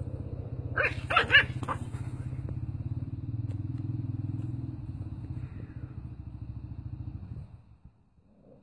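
A small puppy yapping, four or five quick high barks about a second in, over a steady low rumble that stops about seven and a half seconds in.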